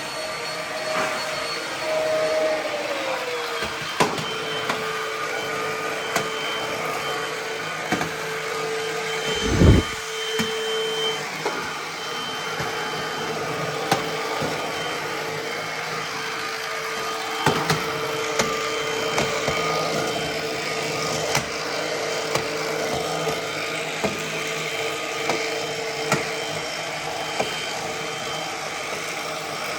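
Ozito PXC 18V cordless stick vacuum running on its economy setting: a steady motor whine and airflow hiss whose pitch drops slightly about three seconds in. Scattered sharp clicks, and one heavy thump about ten seconds in.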